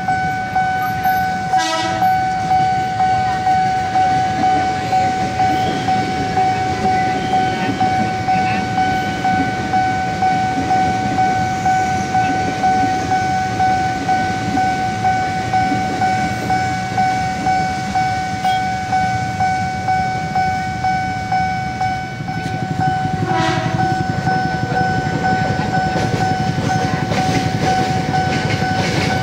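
Railway level-crossing warning bell ringing in an even rhythm of about two strikes a second. A train horn sounds briefly near the start and again a little past twenty seconds in. From about twenty-two seconds a train passes through the crossing with a steady rail rumble.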